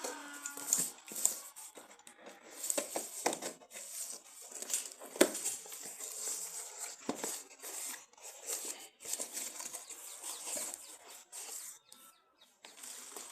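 Smartphone packaging being handled: irregular rustling and crinkling of plastic wrap and cardboard, with scattered light clicks and knocks, the sharpest about five seconds in.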